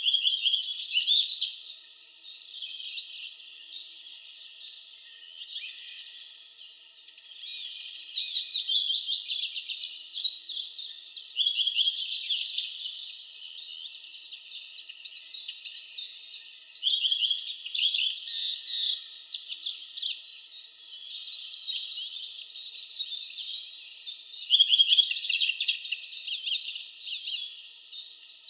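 Many woodland songbirds singing at once, a dense chorus of overlapping high songs and rapid trills that swells and fades throughout.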